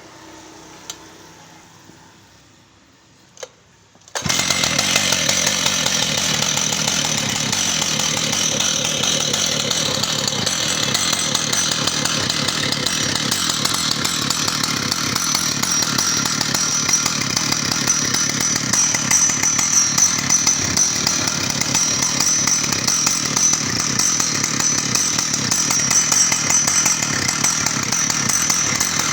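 Stihl MS880, a large two-stroke chainsaw, running steadily at high speed. It starts abruptly about four seconds in, after a quiet stretch with two sharp clicks.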